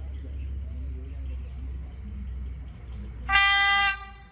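One short, high-pitched train horn blast, a little over half a second long, about three seconds in, from a train approaching down the line. A faint steady hum sits underneath.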